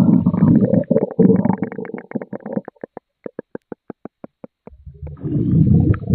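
Cartoon stomach gurgle sound effect. A low growling rumble gives way about a second in to a run of quick bubbly pops that thin out and slow down, and a new low rumble starts near the end.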